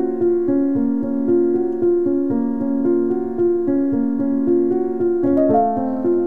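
Background music: a piano-like keyboard playing a steady run of gentle notes, moving up to higher notes near the end.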